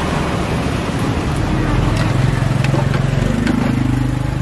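A motor running steadily under general street bustle, its low hum shifting upward in pitch about halfway through, with a few light clicks of utensils.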